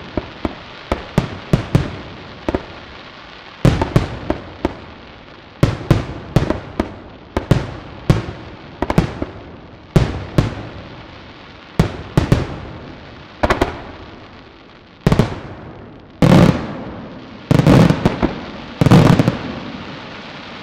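Aerial firework shells bursting one after another: sharp bangs every second or so, each with a fading crackling tail. Over the last few seconds come a run of heavier, deeper booms.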